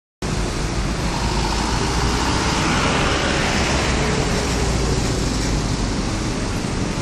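Road traffic passing with a steady low engine rumble, swelling a little around the middle.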